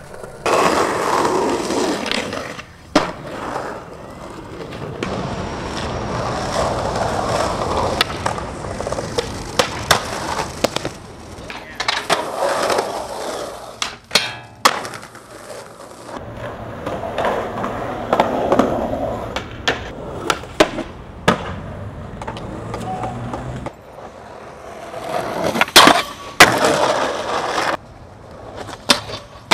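Skateboard wheels rolling on concrete, broken many times by sharp clacks of the board popping and landing.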